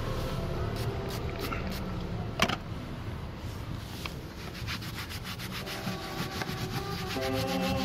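An old sock rubbed back and forth over car trim in repeated scrubbing strokes, with a sharp click about two and a half seconds in. Music comes in over it in the last couple of seconds.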